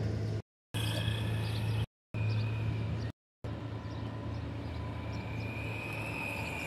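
Electric RC truck's motor whining as it drives away over asphalt, a thin whine that rises and falls in pitch over a steady low hum. The sound cuts out completely three times in the first few seconds.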